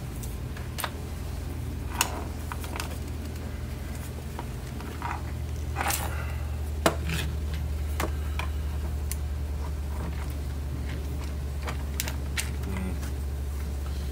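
Scattered clicks and light knocks as a plastic-and-metal pistol crossbow and its bowstring are handled and fitted together, over a steady low hum.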